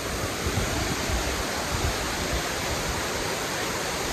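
Dunn's River Falls: water cascading over rocky terraces, a steady, even rush of white noise.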